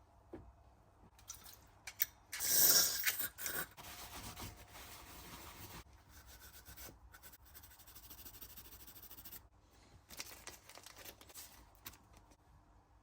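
Hand scraping and rubbing at the rear brake fluid reservoir's lid, in stretches with short pauses, loudest about two to three seconds in.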